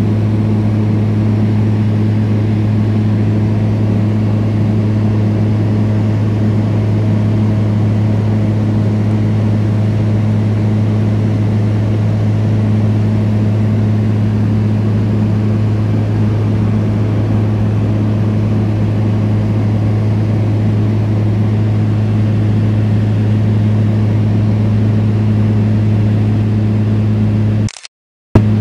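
Steady, deep drone of a light aircraft's engine and propeller heard inside the cabin in cruise flight. The sound cuts out for about half a second near the end.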